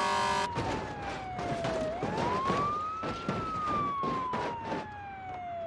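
A wailing siren. Its pitch falls slowly, sweeps back up about two seconds in, then falls slowly again. Short knocks and rustles sound underneath.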